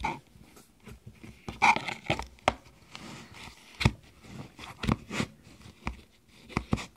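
Fluffy slime being squeezed and smacked by hand, giving a string of irregular sticky pops and smacks.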